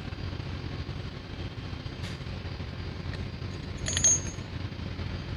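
Steady low machinery rumble, with small metal clicks and one sharp metallic clink about four seconds in as fuel injection pump parts are handled during reassembly.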